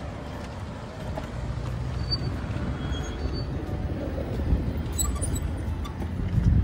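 Wind buffeting the microphone and the hum of city street traffic heard from a moving electric bike. A few faint, short high tones sound between about two and three and a half seconds in, and the low rumble swells briefly near the end.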